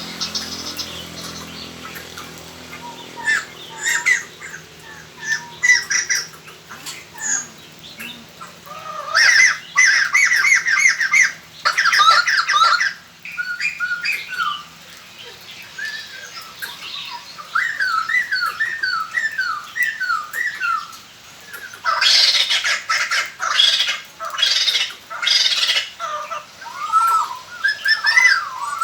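Laughingthrushes calling: repeated bursts of harsh chattering and squawking notes. Two loud, dense cackling choruses come about a third of the way in and again after two-thirds, with quieter scattered calls between.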